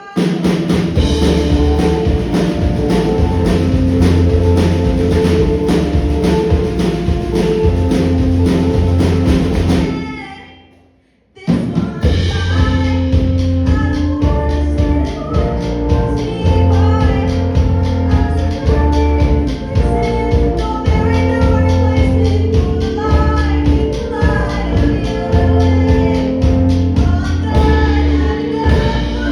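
Live band playing, with drum kit, bass and singing. The music fades out about ten seconds in and starts up again a second or so later.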